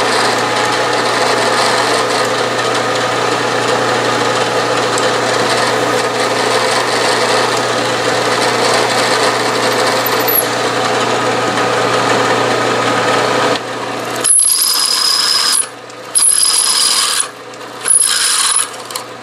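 Bridgeport milling machine spindle running steadily with a drill bit cutting into a steel flywheel blank. After an abrupt change about 14 seconds in, a larger drill bit feeds into the steel in three pecks, each a high-pitched squeal about a second long.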